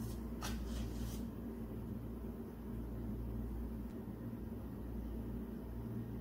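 Steady low mechanical hum, with three brief scratchy noises about half a second to a second in.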